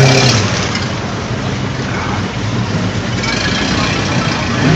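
Ford Mustangs' engines running as the cars roll slowly past in a line, a steady low engine hum that is loudest right at the start.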